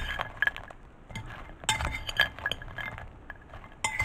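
Metal spoon clinking and scraping against a ceramic baking dish while stirring dry bread cubes, in irregular clusters of clinks with a quieter pause about a second in.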